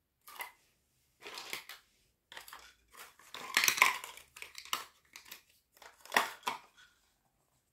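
Small plastic toy pieces clattering and rattling in a run of short bursts, loudest about three and a half seconds in.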